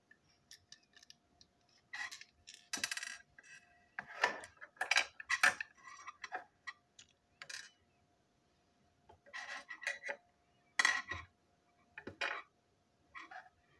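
Small plastic and metal parts of a toy locomotive being handled on a table during disassembly: irregular clicks, taps and light rattles as pieces are picked up, fitted and set down.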